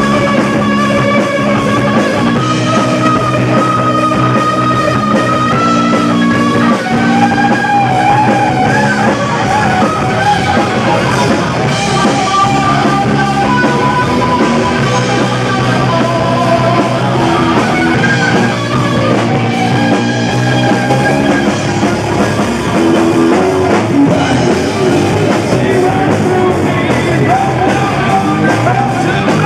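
Rock band playing live: electric guitar, bass guitar and drum kit, loud and unbroken.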